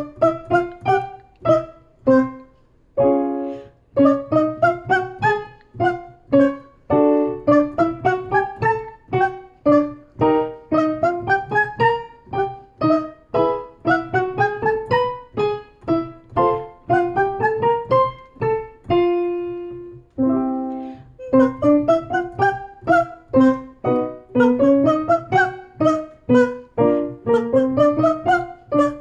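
Piano playing short, detached notes in quick rising patterns, each pattern repeated a step higher over held low notes: the accompaniment for a 'ba' vocal warm-up exercise.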